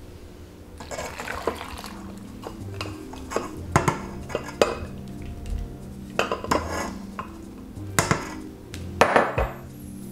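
A stainless-steel stand-mixer bowl and glass measuring cup being handled: several sharp metallic knocks and clinks spread through the stretch. Quiet background music runs underneath.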